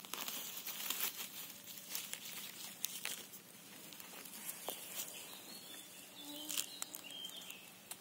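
Rustling and crackling of grass and dry leaf litter as a hand picks a mushroom from the forest floor, with many scattered sharp clicks.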